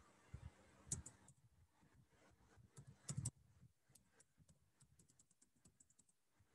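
Faint computer keyboard typing: a quick run of light keystrokes, with a few louder key presses about a second in and about three seconds in.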